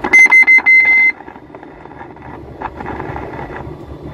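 An electronic warning beeper in a truck cab sounds about a tenth of a second in: three short, high beeps and then a longer one, stopping after about a second. After that only the cab's steady running noise from the truck continues.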